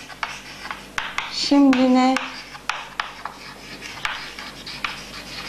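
Chalk writing on a chalkboard: scratchy strokes and sharp taps as a line of words is written, with a short spoken word about one and a half seconds in.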